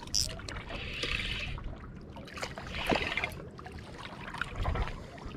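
Spinning reel being cranked to reel in a hooked walleye, a soft clicking run of gear ticks, over water lapping and splashing against a small boat's hull.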